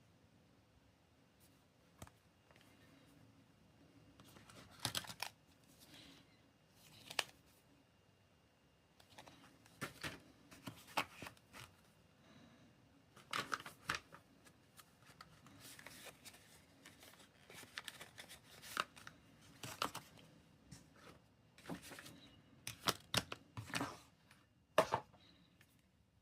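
Unboxing a smartphone: cardboard and plastic packaging handled by hand in short, irregular rustles and scrapes, with a few light clicks.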